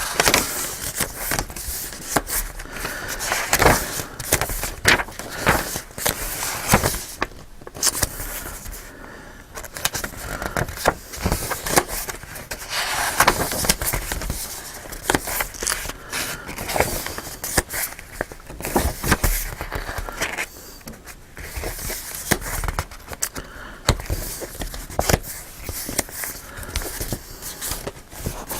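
Pages and cardstock of a handmade junk journal being turned and handled: paper rustling with many short, sharp flicks and taps.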